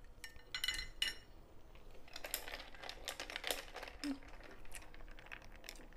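Metal cutlery clinking against a dish, with a short ringing clink about a second in, then a quick run of small clicks and scrapes.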